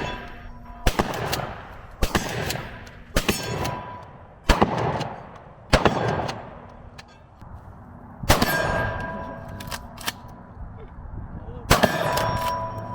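Stevens Model 320 pump-action shotgun fired in quick succession as its magazine is emptied: seven shots, the first five about a second apart, then two more spaced out near the end. A short ringing tone follows some of the shots.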